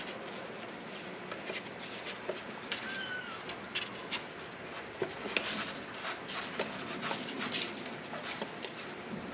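Kittens scrambling around and into a cardboard box, their paws and claws making a run of small scratches, taps and clicks on the cardboard and the pen floor. A single brief high kitten mew about three seconds in.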